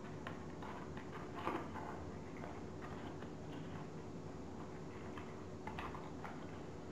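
Folded paper modules rustling and crinkling as hands press and fit them together, with a few short crackles, the loudest about a second and a half in, over a faint steady hum.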